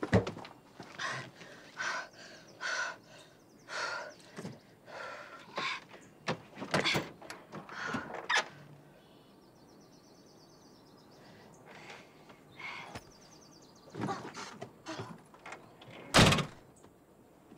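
A run of short knocks, clicks and clatters, as of objects being handled, with one loud thump about sixteen seconds in.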